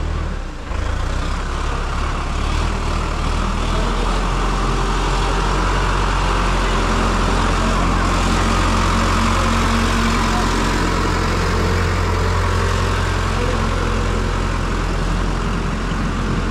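Tractor engine running steadily under load as it hauls a loaded trailer through deep mud, its low hum swelling a little midway.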